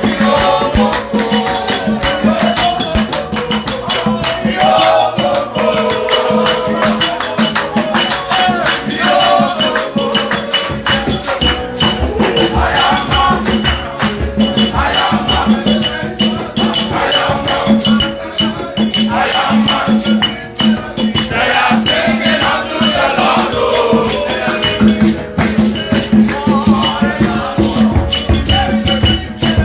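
Gospel worship music with a fast, steady shaker rhythm and other percussion under a melody.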